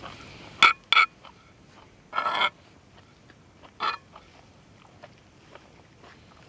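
Short, sharp clicking calls of a small night animal: two quick clicks about half a second in, a brief rattling burst about two seconds in, and one more call near four seconds, over a faint steady hiss.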